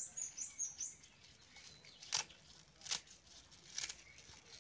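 A small bird's quick, high chirps in the first second, then three sharp snaps as leafy green stems are cut with a small knife.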